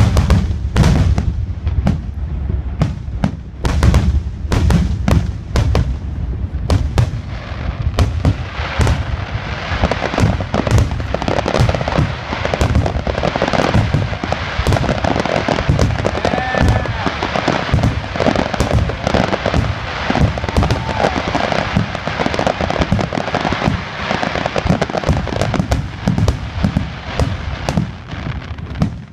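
Aerial fireworks shells bursting in quick succession, many booms and cracks close together, thickening into an almost continuous din in the second half.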